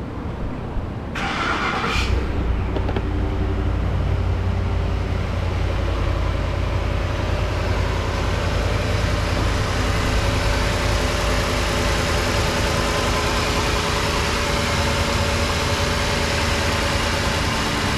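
Ford 5.4-litre V8 of a 2010 F-150 starting: a short burst of cranking about a second in, the engine catches about two seconds in, then settles into a steady idle. It runs pretty good.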